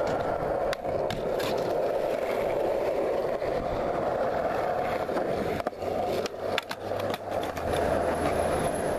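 Skateboard wheels rolling steadily on concrete, a continuous rumble, with several sharp clicks about a second in and again in the second half.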